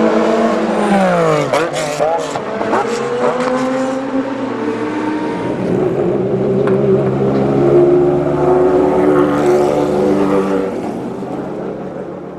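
Porsche 996 GT3 RSR's flat-six racing engine: the revs fall steeply, a few quick throttle blips follow about two seconds in, then it runs at low steady revs and fades near the end.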